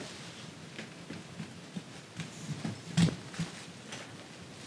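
Quiet handling of a gaming chair's backrest as it is fitted onto the seat: soft shuffles and light ticks, with one sharp knock about three seconds in.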